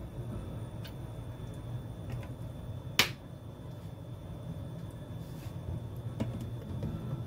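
Kitchen sounds of handling a plastic cooking-oil bottle while oil is poured into a nonstick frying pan: a few light clicks and one sharp click about three seconds in, over a low steady hum.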